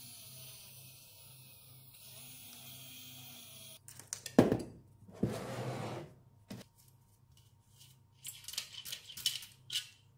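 Small electric starter motor in the RC jet turbine's intake housing, run straight off a battery through clip leads: a steady high whir for about four seconds that stops abruptly. Then clunks as the parts are handled, and a quick run of small metallic clicks.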